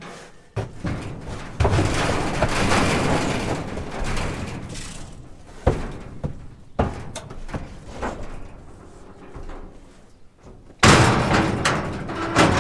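Cattle, a black bull and a white-faced cow, loading into a livestock trailer: hooves clattering on the trailer floor and the trailer rattling, with sharp knocks about six and seven seconds in and a loud bang near the end.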